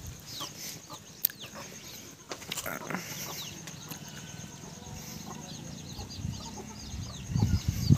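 Chickens clucking, with many short high chirps, a few sharp knocks early on, and a low rumble near the end.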